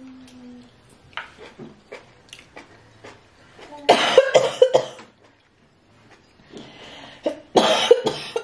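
A woman coughing in two fits, the first about four seconds in and the second near the end, each a quick run of several harsh coughs. The coughing is put on, as part of a pretend vomiting-blood prank. A few faint clicks come before the first fit.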